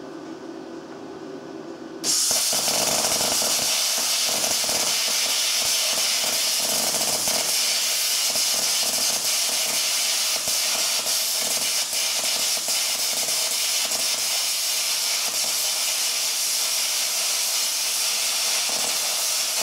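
Luch Profi CUT-50 air plasma cutter, turned up to its maximum 50 amps, cutting through 12 mm steel. The arc starts suddenly about two seconds in with a loud, steady hiss and crackle.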